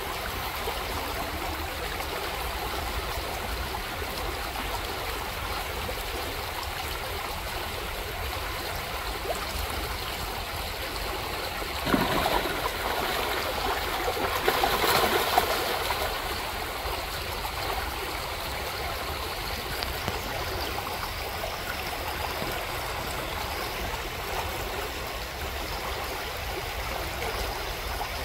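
Shallow gravel creek running steadily over stones. About twelve seconds in, a chum salmon splashes in the shallows, with louder splashing for a few seconds before the water noise settles back.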